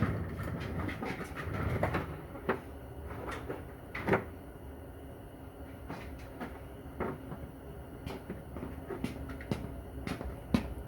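Scattered metal clicks and knocks of a socket and hand tools being fitted to a grimy bolt on a Corvair Powerglide transmission case, the sharpest about two and a half and four seconds in.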